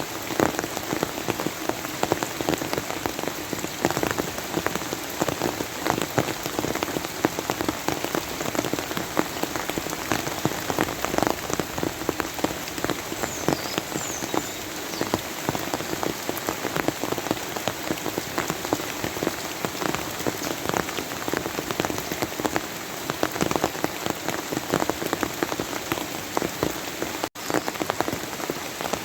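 Steady rain falling on a surface: a dense, even patter of countless drops. The sound cuts out for a split second near the end.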